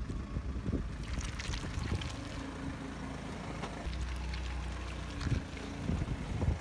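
Car engine idling with a steady low hum, stronger about four seconds in, with scattered light clicks and crackles over it.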